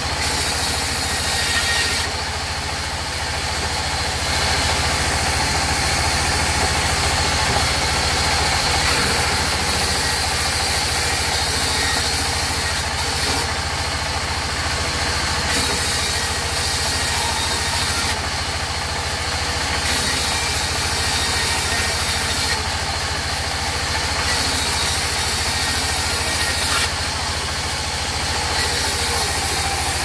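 Sawmill band saw running steadily on its drive motor while its blade cuts mahogany, a loud, even machine hum. A high hiss from the blade in the wood comes and goes every few seconds.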